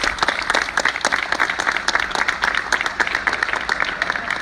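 A crowd applauding, many hands clapping together in a dense, steady patter.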